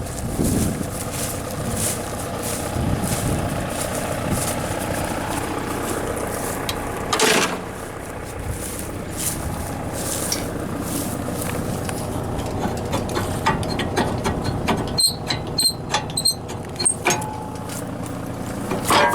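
John Deere 6300 tractor pulling a John Deere 328 small square baler, running steadily with a regular mechanical clatter. There is a brief louder rush about seven seconds in and a run of short, sharp high squeaks near the end.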